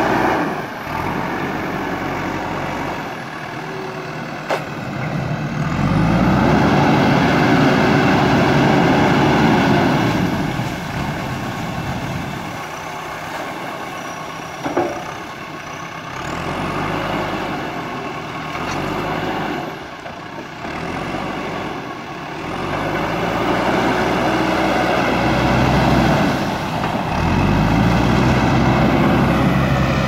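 JCB backhoe loader's diesel engine running, revving up hard for several seconds about a fifth of the way in and again over the last quarter while the loader arm lifts and the machine drives through the river, and dropping back to a lower run in between.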